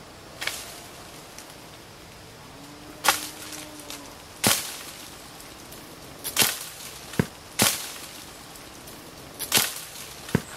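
Sharp cracks and snaps of a long wooden pole striking the branches of a fruit tree to knock fruit down, about eight in all, coming irregularly.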